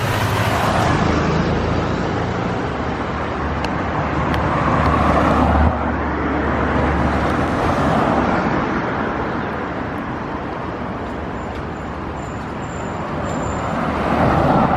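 Street traffic: vehicles passing one after another, rising and falling. A low engine rumble builds about four and a half seconds in and cuts off sharply near six seconds.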